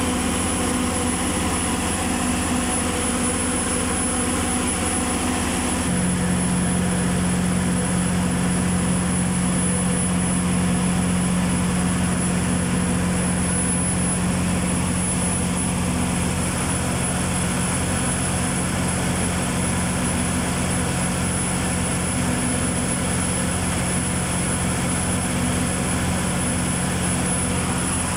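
Perkins 2200 series six-cylinder diesel generator set running steadily under load during a load-bank test after a general overhaul, with a steady high whine over the engine hum. About six seconds in, the low hum grows stronger and then holds steady.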